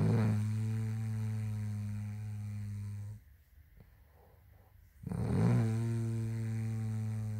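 A woman snoring: two long snores, each a steady low buzz of about three seconds that begins with a breathy rush, about two seconds apart.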